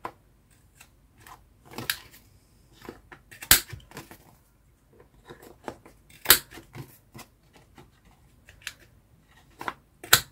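A handheld corner rounder punch snapping through card corners at its 10 mm setting: three loud, sharp snaps a few seconds apart, with smaller clicks and rustling of card between them.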